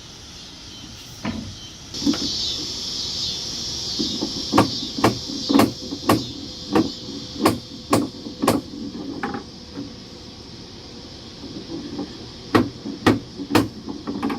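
Hammer blows on wooden deck boards: a run of about nine sharp knocks, roughly two a second, then a pause and three more near the end.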